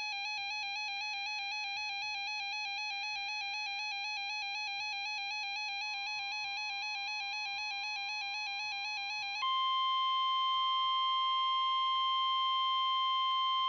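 Weather-radio emergency alert tones ahead of a new warning. A rapidly warbling electronic tone runs for about nine seconds, then about nine seconds in it gives way to a louder, steady, high single tone: the NOAA Weather Radio 1050 Hz warning alarm tone.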